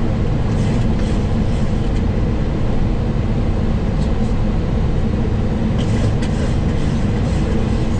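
Steady flight-deck noise inside a Boeing 737 cockpit during descent on approach: a constant low rumble of engines and airflow with no change in level.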